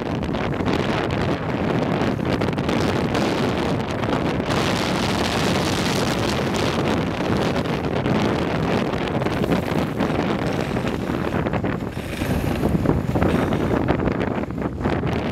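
Steady rush of wind buffeting the camera microphone at downhill longboarding speed, with a louder, hissier stretch about twelve seconds in.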